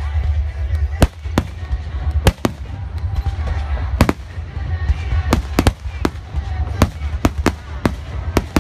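Fireworks display: aerial shells bursting in sharp bangs, a few spaced out over the first seconds, then coming faster, several a second near the end, over a constant low rumble.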